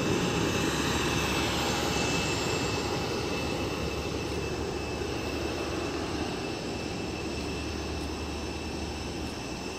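Steady jet whine from an Allegiant Air airliner, a rushing noise with a thin high tone running through it, slowly getting fainter.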